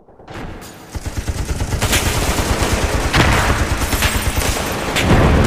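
Battle sound effect of rapid gunfire: a dense crackle of shots that fades in over the first second, with a few louder cracks about two, three and five seconds in.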